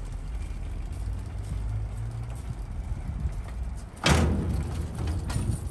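A motor vehicle's low, steady running rumble, with a sudden loud burst of noise about four seconds in.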